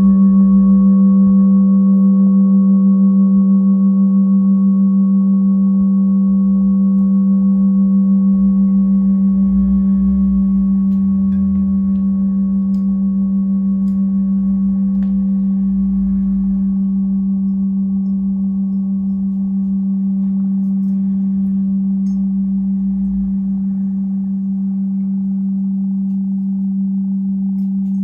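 Singing bowl ringing in a steady, sustained low hum with fainter higher overtones and a slight wavering pulse, slowly fading.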